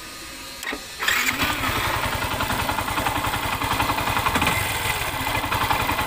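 Yamaha FZ-S V3's single-cylinder engine starting about a second in, then idling with a steady, rapid beat and a 'tok tok' knock, which the mechanic blames on a cut oil seal inside the clutch leaving the engine short of oil.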